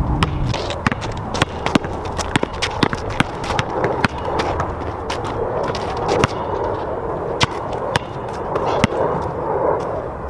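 A basketball bouncing and sneakers stepping on an outdoor asphalt court: irregular sharp knocks, two or three a second, over a steady rushing background.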